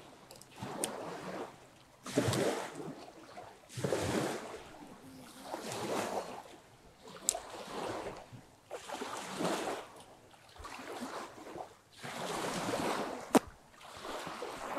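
Small waves lapping against the river bank, a swell of wash every second and a half to two seconds, with a few sharp clicks, the loudest near the end.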